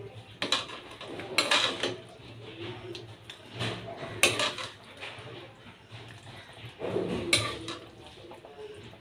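Metal ladle scooping curry out of a metal kadai and clinking and scraping against the pan and the serving bowl: about five irregular knocks and scrapes.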